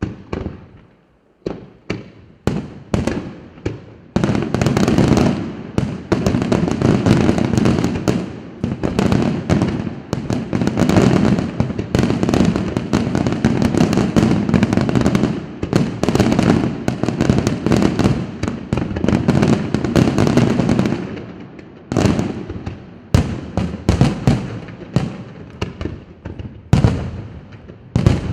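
Fireworks display: aerial shells bursting with sharp bangs, a few single reports at first, then from about four seconds in a dense barrage of overlapping bangs and crackle for some fifteen seconds, easing back to separate bursts near the end.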